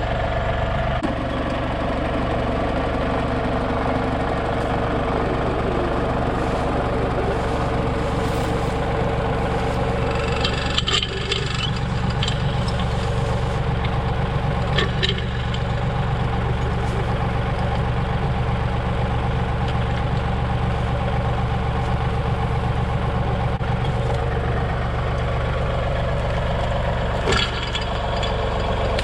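Tractor engine running steadily, with a few short knocks and clanks as a log is hitched and dragged.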